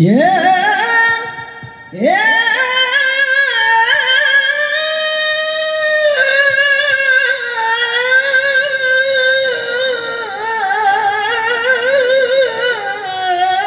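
A woman singing sholawat into a microphone over a PA. Her voice swoops sharply upward right at the start and again about two seconds in, then holds long, ornamented notes that waver and bend in pitch.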